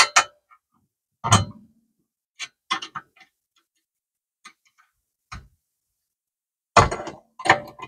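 Metallic clicks and knocks of a 7 mm Allen key being fitted into and turned on a rear brake caliper's guide-pin bolt, irregularly spaced, with a louder cluster near the end.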